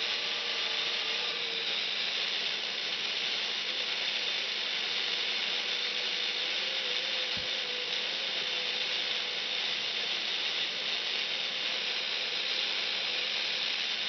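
Steady receiver static hiss from a Quansheng UV-K5 handheld's speaker with its squelch open on the 10 m band, a faint wavering whistle running underneath.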